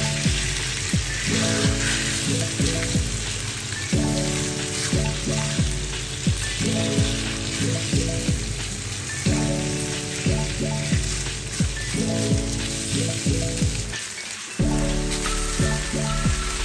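Beef strips sizzling in hot oil in a stainless steel frying pan as they are stirred and turned with a silicone spatula. Background music plays along with it, stopping briefly near the end.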